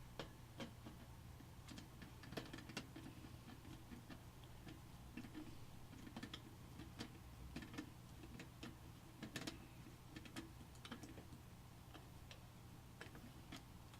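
Faint, irregular light clicks and ticks, a few a second at most, from small PC case parts being handled during assembly, over a low steady hum.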